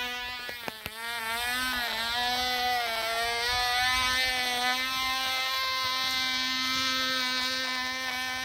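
Cox Pee-wee .020 two-stroke glow engine buzzing at high revs on a free-flight model airplane as it climbs away after launch. The pitch wavers over the first two seconds, then holds steady.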